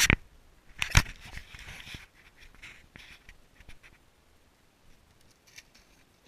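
Two sharp thumps about a second apart, then faint scattered rustling and ticks.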